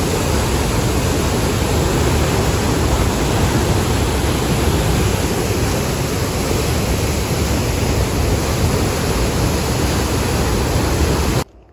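Rearguard Falls on the Fraser River: a huge volume of whitewater pouring over the falls, a loud, steady rushing noise that stops abruptly just before the end.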